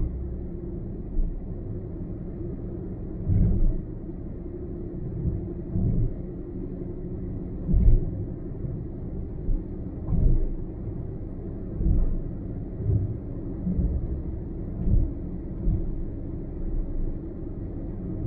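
Car driving along a highway, heard from on board: a steady low rumble of road and engine noise with irregular low thumps every second or two.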